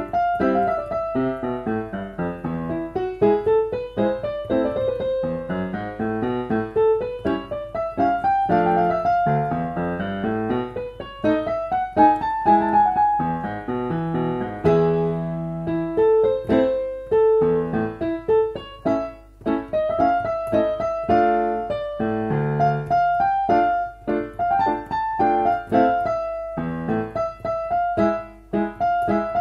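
Solo piano playing a piece from sheet music: continuous melody over chords, with rising and falling runs in the first half and more repeated, rhythmic chords later on.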